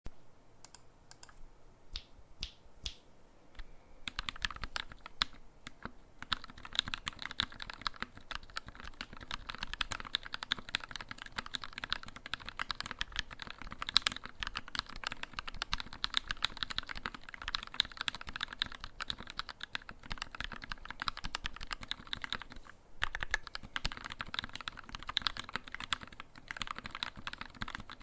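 Mechanical keyboard typing on a Tx75 v2 with a brass plate, lubed Gateron Black Ink linear switches fitted with TX films and 60 g springs, and GMK keycaps. A few separate keystrokes come first, then fast continuous typing from about four seconds in, with a brief pause about three quarters of the way through.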